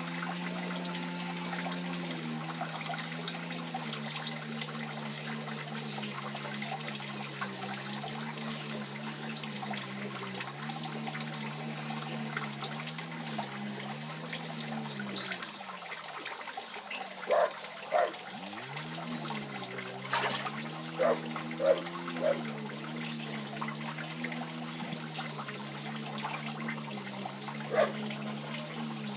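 Water pouring and splashing steadily into an aquaponic fish tank, over a low hum that wavers in pitch and sags down and back up about halfway through. A handful of short, sharp splashes come in the second half.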